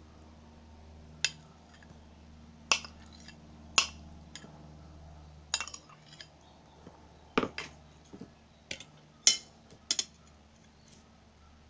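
Metal spoon clinking and scraping against a ceramic bowl and plate as scrambled eggs are scooped out onto rice: about a dozen sharp, irregular clinks.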